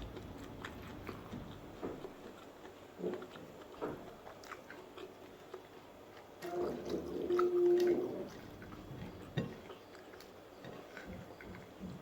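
A person chewing and biting food, with small wet clicks and mouth sounds. About six and a half seconds in, a louder stretch of more than a second carries a steady hummed tone.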